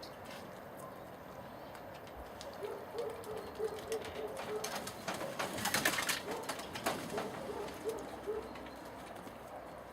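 An animal calling in quick runs of short low notes, about five a second, twice. In between comes a louder patch of rapid clicking and rustling.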